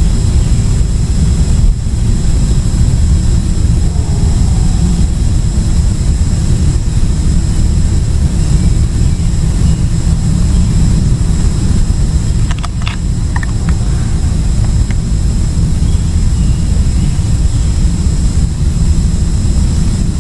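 Loud, steady low rumble throughout, with a faint high steady whine over it and a few short clicks about thirteen seconds in.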